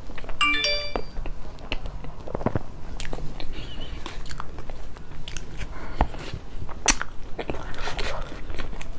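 Close-miked eating sounds: a large soft filled bread bun torn apart by hand, then bitten and chewed, with many small sharp clicks and crackles. A brief squeaky tone sounds about half a second in.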